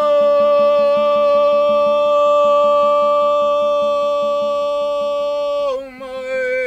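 A voice singing one long, steady, held note that slides up into it at the start. Near the end it drops a little and breaks into a wavering, ornamented phrase.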